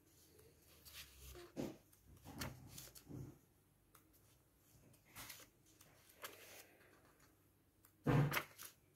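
Pages of a paperback puzzle book being turned by hand: a series of short papery rustles and flicks at uneven intervals, the loudest near the end.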